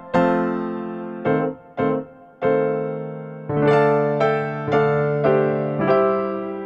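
Background music on a piano-type keyboard: a slow, gentle melody of single notes and chords, each struck and then fading away.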